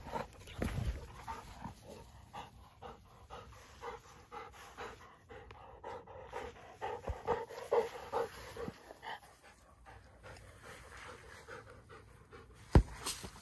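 Great Pyrenees puppy panting in a steady run of short breaths, with a single sharp knock near the end.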